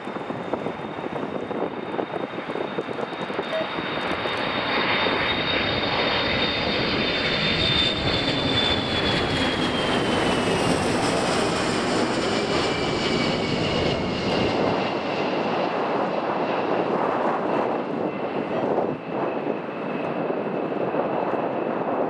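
Boeing KC-135 Stratotanker's four jet engines at take-off power as it climbs out and passes overhead. It is a loud rushing roar that builds over the first few seconds and stays strong, with a high whine that slides down in pitch about halfway through as the jet goes over.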